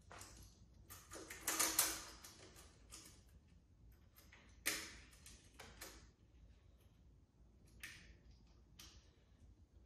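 Small metal parts clicking and rattling against an aluminium 3D-printer frame as a steel T-bracket is fitted with its screws and T-nuts. The clicks come in a cluster about a second and a half in, then one sharp click near the middle and a few fainter ones.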